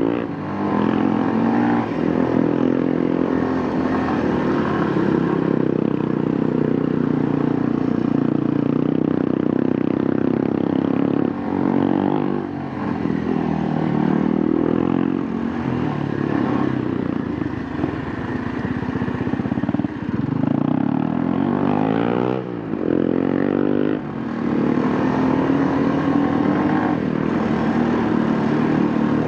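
Kawasaki KLX230's single-cylinder four-stroke engine running on the move, its pitch rising and falling with the throttle, with a few short drops in level along the way.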